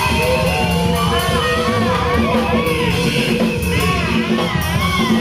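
Congregation singing and calling out together over loud band music, with several voices overlapping.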